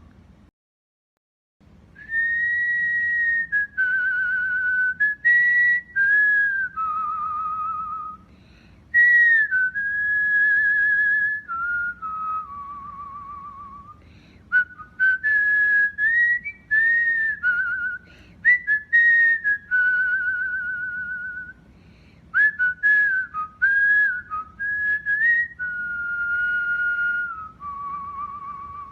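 Cockatiel whistling its song: a run of clear whistled phrases that glide up and down, some with a fast warble, broken by short pauses. It starts about two seconds in.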